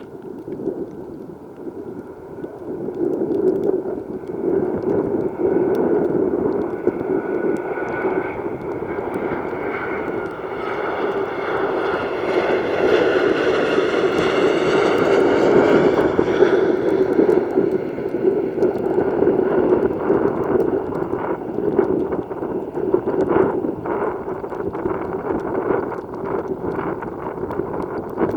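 Boeing 737-800 airliner's CFM56-7B jet engines as it comes in to land and passes by. Over a steady rushing roar, a high fan whine swells to a peak about halfway through and then fades. Scattered short thumps follow in the second half.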